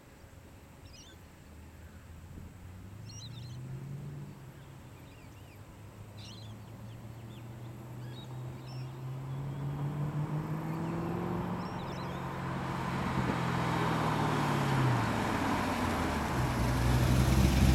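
HSV VE Maloo's 6-litre LS2 V8 through a Walkinshaw 4-into-1 header and twin 3-inch stainless exhaust, accelerating toward the listener and growing steadily louder. Its pitch rises, drops back about four seconds in as it changes up, rises again, falls away near the end as it eases off, and it is loudest passing close by at the end. Birds chirp faintly in the first half.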